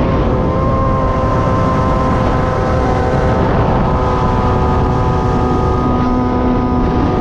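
Kawasaki ZX-636R inline-four motorcycle engine in a Honda TRX450R ATV, running at steady high revs with its pitch holding nearly level, over a heavy low rumble.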